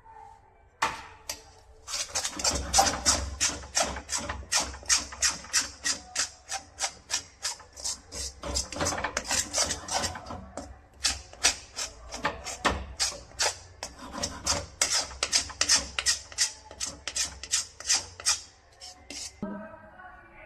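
A spoon stirring and scraping a thick, sticky jaggery mixture against a pan, in quick repeated strokes, about three a second.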